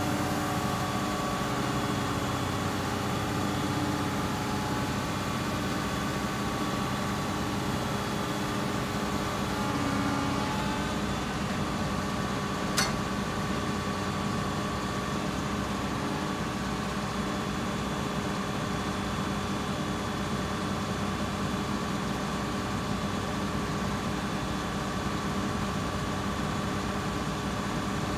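Cat wheeled excavator's diesel engine idling steadily, with one sharp click about halfway through.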